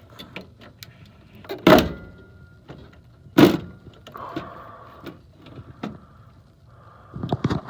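Metal furnace burner parts being handled: small clicks and rattles, two louder scraping clunks about 1.7 and 3.4 seconds in, and a quick run of clicks near the end.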